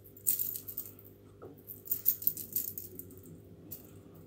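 Metal chain necklace jingling and rattling as a kitten paws at it, in two bursts of quick clinks, the second longer.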